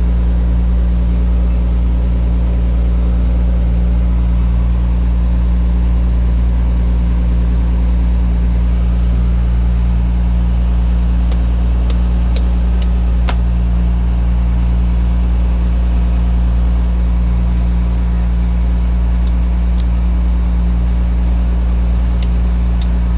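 Fishing boat's engine running steadily, a loud constant low drone with a thin high whine above it. A few faint clicks come through about halfway and near the end.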